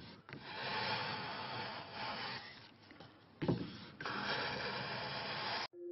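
Japanese hand plane (kanna) shaving sycamore maple, two long even strokes of the blade hissing along the wood, the second starting with a sharp catch about three and a half seconds in. The planing cuts off just before the end.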